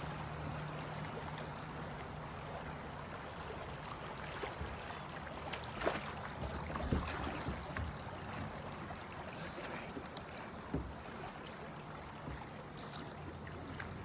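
Rushing river water, a steady hiss heard from a boat floating downstream, with a few light knocks about six and seven seconds in.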